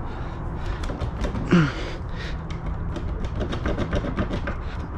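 Old boat steering wheel being gripped and rocked to work it loose from its splined shaft after the hub nut is off: a run of small clicks and knocks that get busier toward the end. A short grunt of effort comes about one and a half seconds in.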